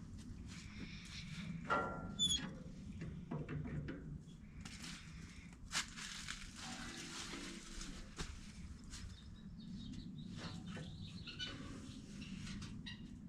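Scattered clicks, knocks and scrapes of hand work on the wood chipper's belt cover as it is fitted back on, with a short high squeak about two seconds in.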